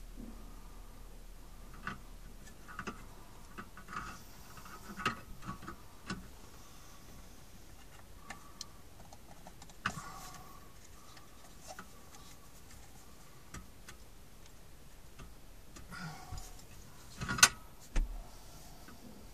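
Plastic wiring-harness plugs clicking and rattling as they are pushed into the back of a metal-cased car stereo head unit, with scattered small clicks and handling noise. Two sharper knocks come near the end, the first the loudest.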